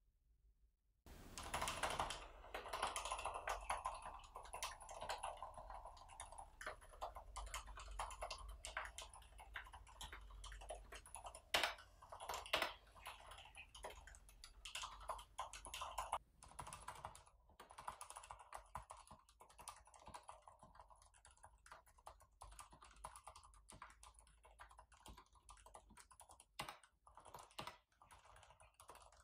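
Fast, continuous typing on a Mars Pro Vesta mechanical keyboard with Cherry MX Silent Red low-noise linear switches, starting about a second in. There are a couple of louder keystrokes about twelve seconds in.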